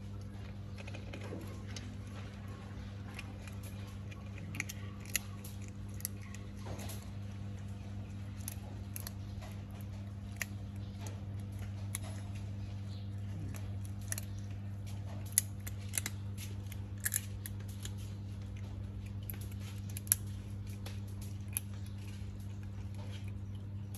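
Scattered sharp clicks, irregularly spaced, over a steady low hum.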